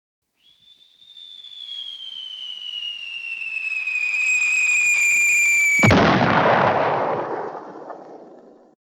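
Cartoon falling sound effect: a long whistle sliding slowly down in pitch and growing louder, cut off about six seconds in by a sudden loud explosive boom that dies away over about three seconds.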